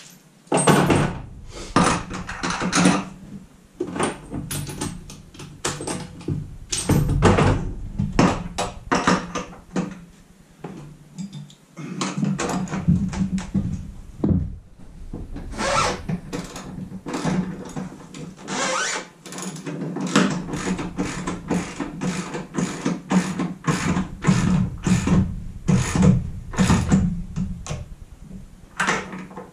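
Hand ratchet clicking and metal hardware knocking as the nut is run down on the bolt of a wall-mounted spare tire carrier holding a trailer tire. Irregular clanks and knocks give way in the second half to a long, fairly even series of ratchet clicks.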